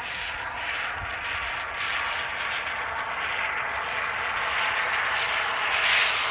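Can of expanding spray foam hissing steadily as foam is run into the gap between a log and plywood sheathing.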